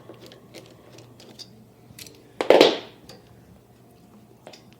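Light clicking of a ratchet wrench working a nut, then a single louder scraping noise lasting about half a second midway.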